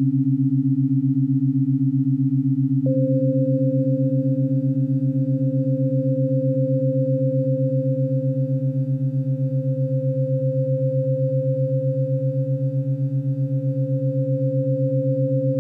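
Electronic synthesizer drone: two low held tones with a fast pulsing, joined about three seconds in by a higher steady tone that holds to the end.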